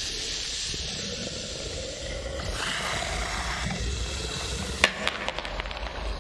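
Film sound effects of the basilisk, a giant serpent, hissing and roaring, with a sharp crack about five seconds in followed by a few lighter clicks.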